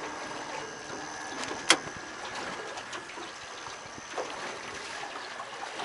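Quiet on-deck boat ambience: a faint steady hiss of wind and water with a thin high steady tone. A single sharp click or knock comes a couple of seconds in, and a softer one a little past halfway.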